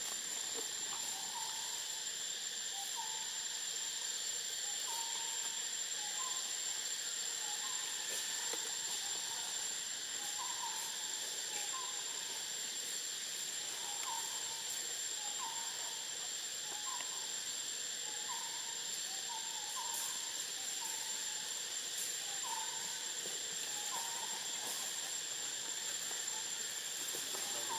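Forest ambience: insects drone steadily with a thin high whine, while a bird repeats short hooting notes about once a second, sometimes in pairs.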